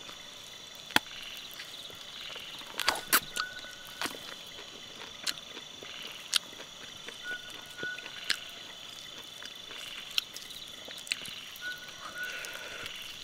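Close-up eating sounds: scattered sharp bites, crunches and mouth clicks as cooked chicken meat is gnawed off the foot and bones. Behind them, a steady night chorus of insects and frogs, with a short repeated call every four to five seconds.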